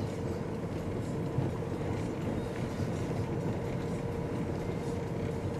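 Steady road noise inside a car's cabin as it drives slowly, tyres rumbling on brick paving with the engine running, under a steady faint hum.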